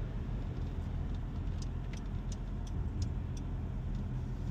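Car cabin noise while driving: a steady low road and engine rumble. A run of light, evenly spaced ticks, about three a second, comes in about a second and a half in and lasts about two seconds.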